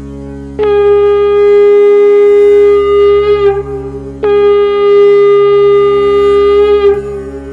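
Background music: a melody instrument plays two long held notes over a steady low drone, the first beginning about half a second in and the second about four seconds in, each wavering slightly before it ends.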